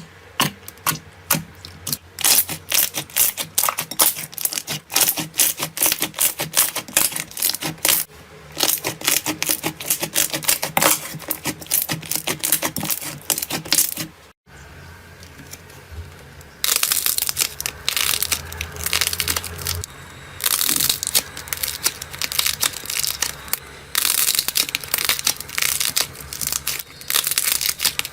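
Slime being squeezed and pressed, giving rapid, crisp crackles and clicks. The sound drops out briefly about halfway through, then comes back with denser crackling.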